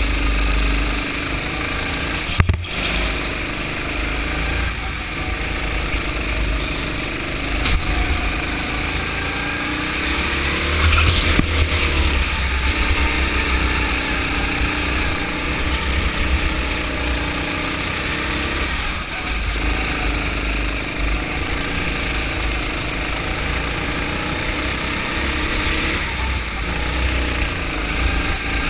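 Go-kart engine running under racing load, heard from the kart itself, its pitch rising and falling with the throttle through the corners over a strong low rumble. A single sharp knock about two and a half seconds in.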